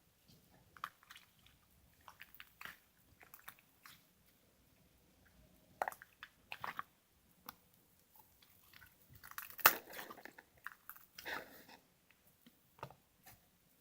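Chewing and crunching in irregular short bursts with quiet gaps, the loudest crunch a little under ten seconds in.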